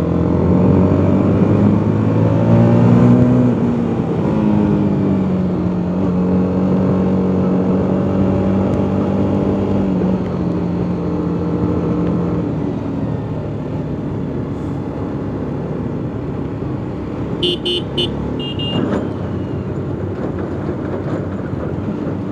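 Motorcycle engine under way, revs climbing over the first few seconds and then settling to a steady pull, with road and wind noise. A horn gives several short beeps a little after three-quarters of the way through.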